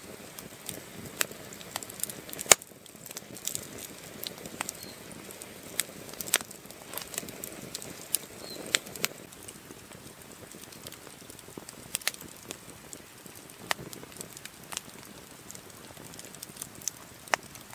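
Wood campfire crackling, with irregular sharp pops and snaps over a low hiss; the loudest snap comes about two and a half seconds in.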